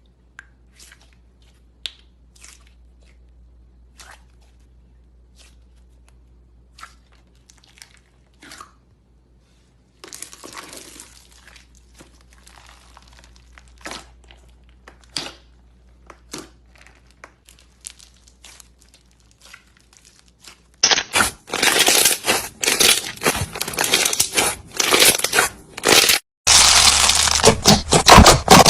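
Slime being squeezed and pressed by hand, crackling and crunching. Scattered faint crackles at first, then much louder, dense crackling about two-thirds of the way in, with a brief pause near the end.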